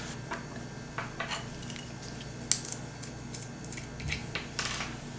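Irregular light clicks and taps of small 3D-printed gears and spacers being handled and fitted together, with a sharper click about halfway through.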